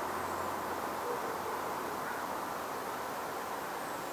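Steady outdoor ambient hiss, with a faint low hooting bird call about a second in and thin high chirps at the start and near the end.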